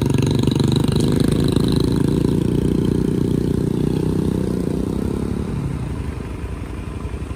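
Several small motorcycles running and pulling away along a gravel track, their engine sound slowly fading as they move off, while an engine keeps running close by.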